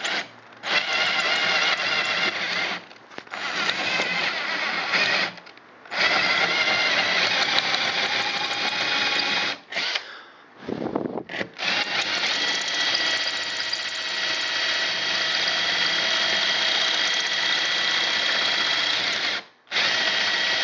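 Drill turning a 9/16" bi-metal hole saw that cuts into a metal door, run in short bursts with brief stops and then one long steady run of about eight seconds, with a steady high-pitched whine from the saw on the metal.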